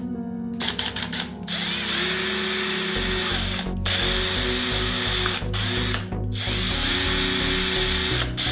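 Cordless drill with a few ratcheting clicks near the start as its keyless chuck is tightened, then the motor running in long runs with short stops as the bit drills into a plastic box.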